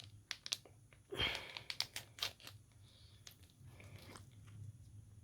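Small plastic sachet of instant-noodle laksa paste being torn open by hand at its notch: a short tear about a second in, with a few sharp crinkles of the plastic around it and faint rustling later.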